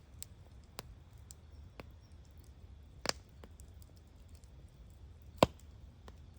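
Wood campfire crackling: a few scattered small pops over a low rumble of burning, with two sharp loud snaps about three seconds and five and a half seconds in, the second the louder.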